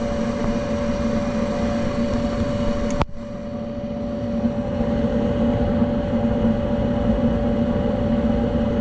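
Goodman gas furnace running: a steady motor hum with a rushing noise underneath. A sharp click about three seconds in, after which the sound drops briefly and builds back up.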